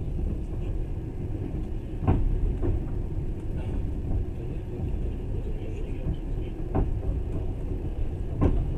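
Passenger train running, heard from inside the carriage: a steady low rumble with a few sharp knocks, the loudest about two seconds in and near the end.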